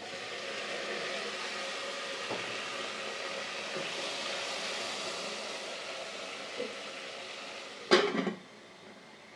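Goat meat frying in an open metal pot, sizzling steadily. Near the end the metal lid clatters back onto the pot and the sizzle drops to a faint muffled hiss.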